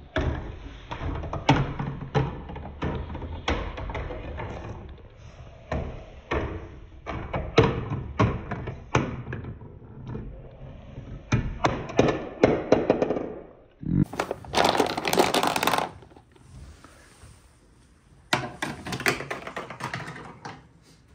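A plastic ball rolling down a marble run's wavy plastic track and onto curved wooden pieces: a steady rumble broken by many clacks and knocks at the joins and drops. About two-thirds of the way through the rumble stops, and two separate bursts of rattling follow, each about two seconds long.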